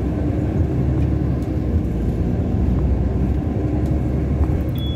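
Steady low rumble of engine and road noise from a moving car.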